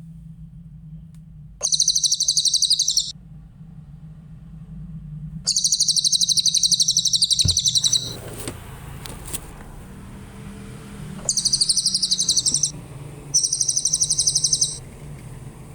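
Cililin songbird singing four high, rapid trills of about one and a half to two and a half seconds each, with short pauses between them, over a steady low hum.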